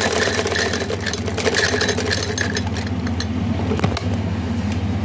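Sewing machine running steadily as it stitches fabric: a low, even hum with a fast regular patter and a few sharper clicks.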